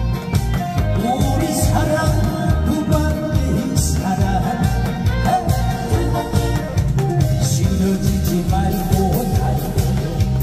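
Upbeat Korean trot music with a steady, pulsing beat, played loud.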